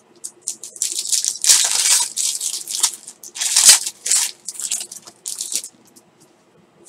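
Foil wrapper of an Elite baseball card pack being torn open and crinkled in a run of crackling bursts, loudest about two and three and a half seconds in, stopping about six seconds in.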